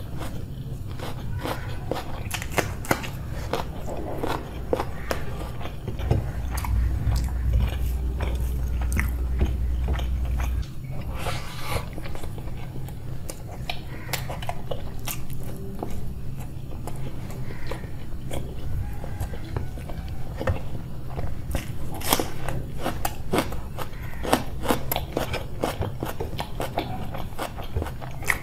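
A person eating close to the microphone: steady chewing with many short crunchy bites and mouth clicks, over a low steady hum. A louder low rumble comes in about six seconds in and stops about ten seconds in.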